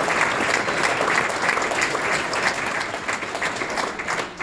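Large audience applauding, a dense crowd of clapping hands that thins out and tapers toward the end.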